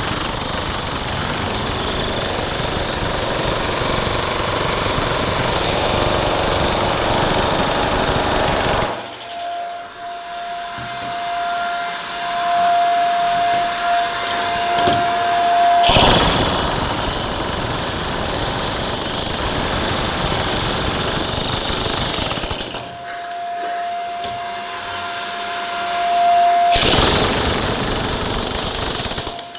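Handheld power tool working into hard material in long loud stretches of grinding, hammering noise. In between it runs free with a steady high motor whine, twice.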